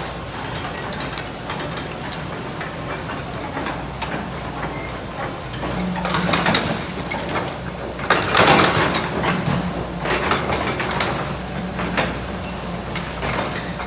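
Hyundai excavator's diesel engine running steadily, with scattered clicks and clatter and two louder scraping bursts about six and eight seconds in, the second the loudest.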